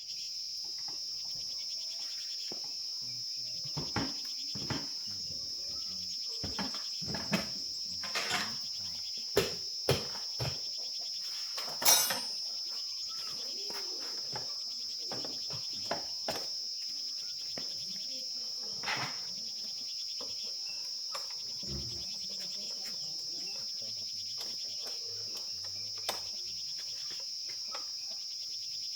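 Steady high-pitched insect chirring, with scattered short clicks and knocks throughout, the loudest about twelve seconds in.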